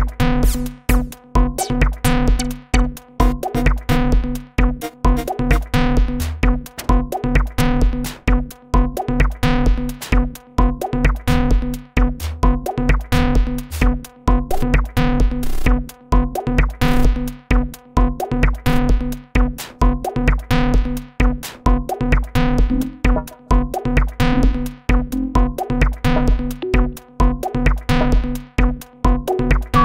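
Techno drum loop of synthesized drum one-shots and effect samples playing a steady, repeating beat over a looping techno synth line.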